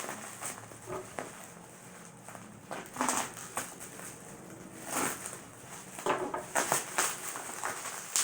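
Hands working at a taped-up cardboard parcel: short bursts of rustling, crackling and tearing a second or two apart.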